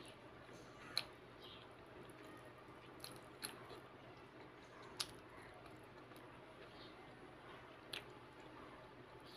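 Quiet eating sounds: rice being squeezed by hand and chewed, with a few short sharp clicks about a second, three, five and eight seconds in.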